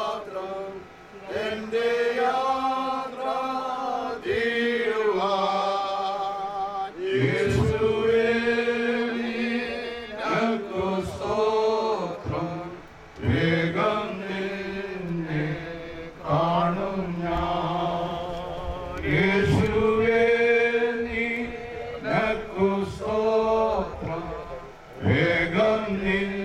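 Mourners singing a slow funeral hymn in Malayalam, long held notes in phrases with short breaks between lines.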